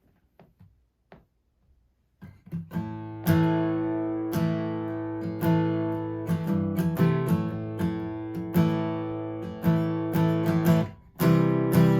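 Acoustic guitar strummed, opening the song with no singing yet. A few faint taps come first, then strummed chords ring out from about two seconds in, with a brief break near the end.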